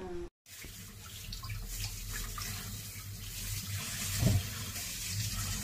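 Kitchen tap running into a stainless steel sink while a zucchini is washed under the stream, with one short knock a little over four seconds in.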